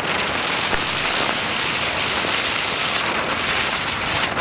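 Rubro Spinning Blitz ground spinner firework spinning on the ground, giving a steady hiss of spraying sparks. A few sharp crackles come near the end.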